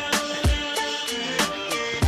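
Background music with a steady hip-hop beat: deep kick drums about twice a second under sharp snare or hi-hat hits and sustained synth notes.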